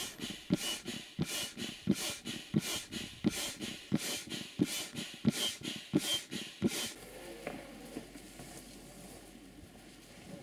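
Foot pump inflating an inflatable PVC boat: about ten rhythmic strokes, each a thump with a puff of air, roughly one and a half a second. The pumping stops about seven seconds in.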